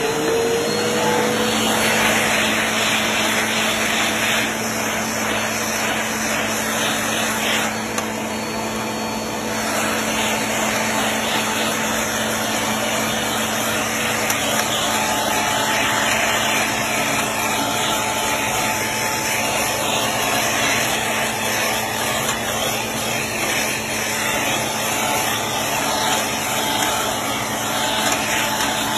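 Bissell PowerForce Helix Turbo upright vacuum cleaner running steadily with a hose attachment, its motor just settling to full speed after being switched on. The steady hum and rush of suction ease slightly about eight seconds in, then pick up again.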